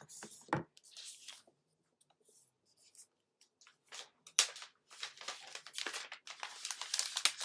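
Cardboard and plastic packaging being handled while a keyboard case is unpacked: short, scattered rustling and scraping noises, quiet for about a second and a half near the middle, then coming thick and fast toward the end.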